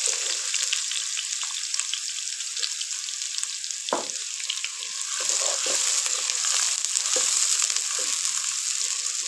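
Sliced onions frying in hot ghee in a nonstick pan: a steady, high sizzle. A wooden spatula scrapes and knocks against the pan now and then as the onions are stirred.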